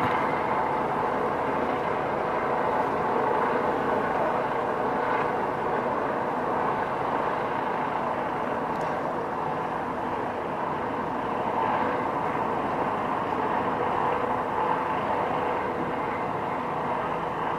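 Steady outdoor urban rumble with nothing standing out from it.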